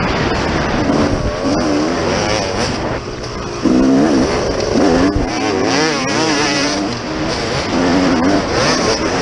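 Dirt bike engine revving up and down repeatedly as the rider works the throttle and shifts through gears, heard from on the bike. The engine note jumps suddenly louder about three and a half seconds in as the throttle is opened hard.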